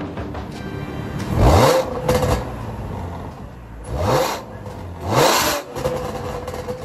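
Audi B8 S4's supercharged 3.0 V6 blipped through a custom 2.5-inch exhaust with gutted cats, an X-pipe and ValvedExhaust mufflers: idling between a few quick free revs, each a rising surge, the first and loudest about a second in and two more near the end.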